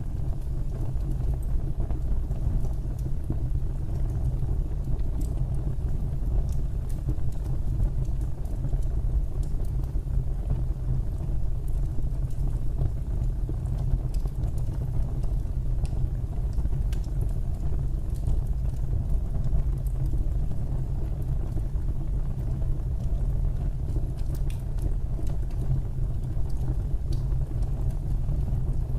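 Fire burning in a fireplace: a steady low rumble of flames with scattered small crackles.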